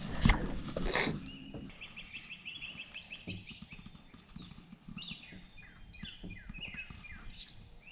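Songbirds singing: a fast run of repeated high notes, then a string of short falling notes. Two sharp knocks in the first second.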